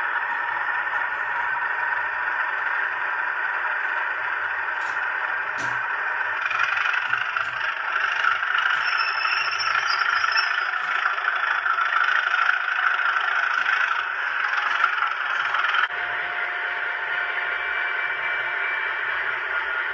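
Model trains running on a OO-gauge layout: a steady whirring rattle of the locomotive motors and wheels on the track, with a couple of sharp clicks. The sound grows louder about a third of the way in and drops off suddenly near the end.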